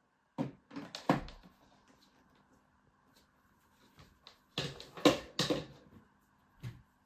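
Short, sharp knocks and clacks of things being handled: a few in the first second and a half, a quick cluster about five seconds in, and one more near the end.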